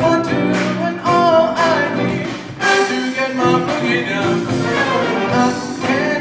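A live jazz band playing: a brass section of trumpets and trombone, with a male lead vocalist singing over it.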